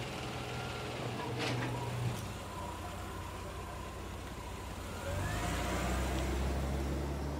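A car engine running as the car moves off, its low rumble growing louder about five seconds in. A sharp click sounds about two seconds in.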